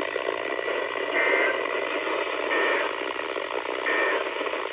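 NOAA Weather Radio end-of-message signal: three short SAME data bursts, each a fraction of a second long and about a second and a half apart, over steady radio static.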